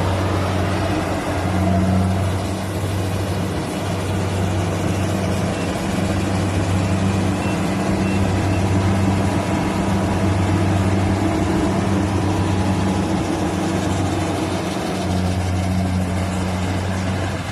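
Rice combine harvester's engine running steadily, a loud low hum with machinery noise over it that wavers slightly now and then.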